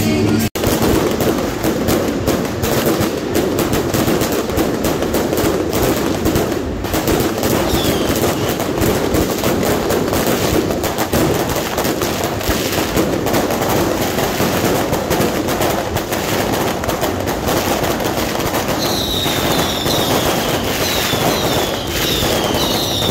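Firecrackers and aerial fireworks going off in a dense, unbroken crackle of rapid bangs. Over the last few seconds a series of short falling whistles rides above the crackle.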